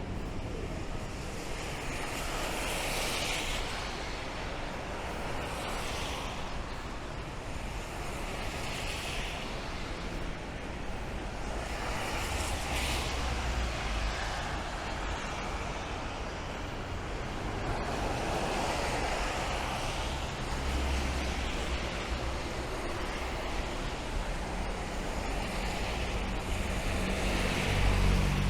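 City street traffic in the rain: cars passing one after another on wet road, their tyre hiss swelling and fading every few seconds over a steady wash of rain, with a heavier vehicle's low rumble near the end.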